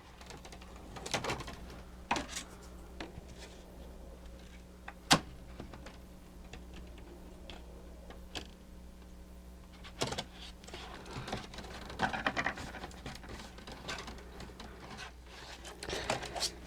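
Small clicks, taps and rustles of plastic parts being handled and fitted by hand during reassembly of a mechanical animated display. There is one sharp click about five seconds in and a cluster of taps and rustling around ten to twelve seconds in, over a steady low hum.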